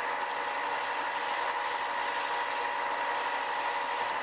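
A 4 x 36 in. bench belt sander running steadily while the end of a steel tube is held against the belt, grinding material off the tube end to shape it to fit against another tube.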